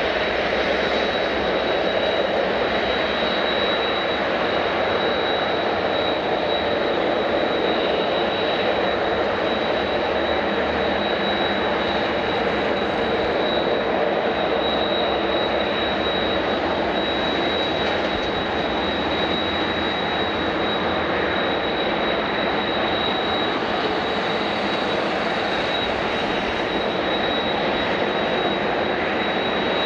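Airliner engines running steadily: an even, rushing engine noise with a constant high-pitched whine that holds at one level throughout.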